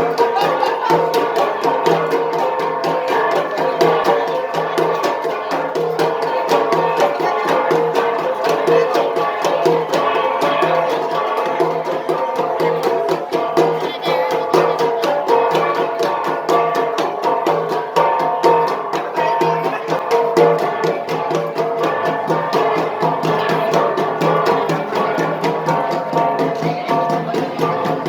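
Ensemble of flat bronze gangsa gongs struck in a fast, steady, interlocking beat, their ringing pitches layered over one another.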